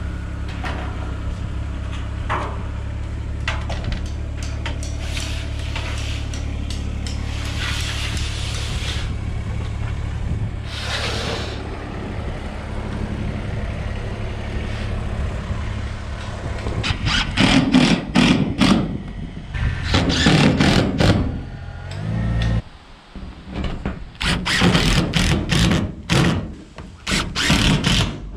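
DeWalt 20V cordless impact driver driving screws through a steel ridge cap into a metal roof, in several loud, short bursts near the end, with clatter of the sheet metal being handled just before. Under the first part an engine runs steadily, then cuts off suddenly.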